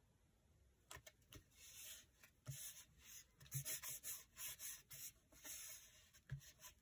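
Hands rubbing and smoothing a strip of paper flat onto a paper sheet: a run of soft, hissing strokes of skin on paper, with a couple of light taps about a second in.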